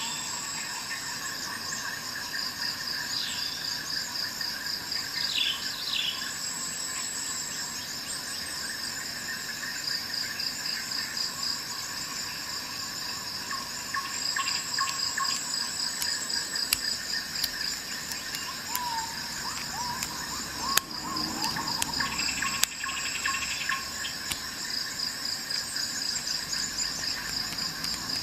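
Steady insect chorus: several high chirping tones going on together, one pulsing in a fast even rhythm. A few sharp clicks come through about two-thirds of the way in.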